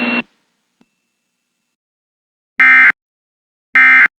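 A steady noisy hum cuts off abruptly about a quarter second in. After a pause come two short, identical bursts of screeching digital data tones about a second apart: the Emergency Alert System end-of-message (EOM) SAME header bursts that close the warning.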